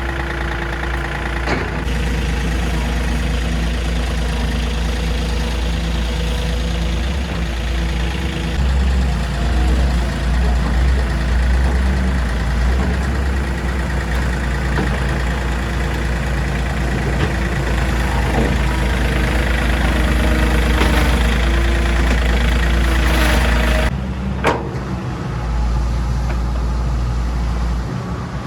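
Engine of earthmoving equipment running steadily as it works mud, its pitch shifting a little now and then, with an occasional knock. The sound changes abruptly about 24 seconds in.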